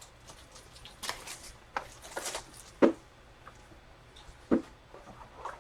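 Handling and opening a sealed trading-card box and its packaging: scattered rustles of cardboard and wrapper, with two sharp clicks about a third and four fifths of the way through.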